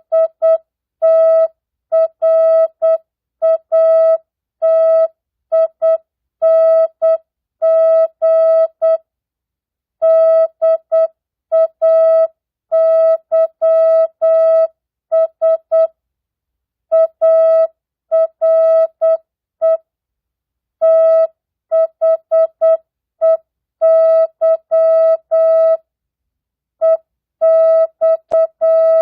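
Morse code (CW) practice tone: a single steady mid-pitched beep keyed on and off in dots and dashes at 8 words per minute, non-Farnsworth, spelling out mixed words, numbers and punctuation. The longer silences of about a second are the gaps between words.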